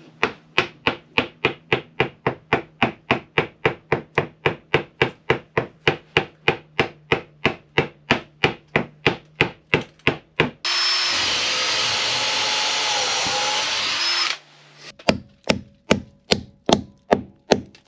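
Rapid, evenly spaced taps, about three a second, fastening a wooden boat's new frames, in the way copper nails are riveted over roves. About ten seconds in, a power tool runs steadily for just under four seconds, then the tapping starts again.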